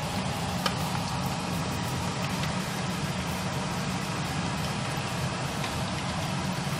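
Lángos dough deep-frying in hot oil in a pan: a steady sizzle over a steady low hum, with a light click a little under a second in.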